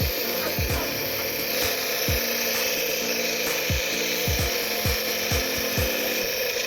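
Home compressor nebulizer running steadily, its piston compressor giving a constant rasping buzz while it mists the medicine. Short low thumps recur under it every half second to second.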